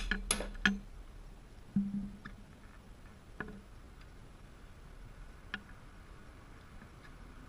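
A few scattered metallic clicks and knocks from the front wheel and axle of a sportbike being worked loose and lifted off. Three come close together at the start, the loudest, a dull knock, about two seconds in, and two lighter taps follow further on.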